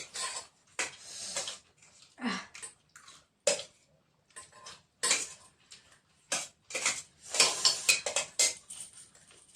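Dishes and cutlery clinking and scraping in irregular short knocks while chillies are being eaten from a plate.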